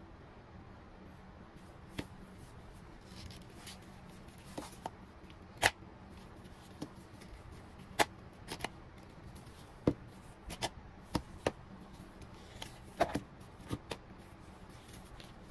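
Plastic Lenovo Thinkplus TH30 headphones being handled: irregular sharp clicks and taps, about a dozen, as the headband's metal slider is pulled out and the ear cups are moved, with soft rubbing in between.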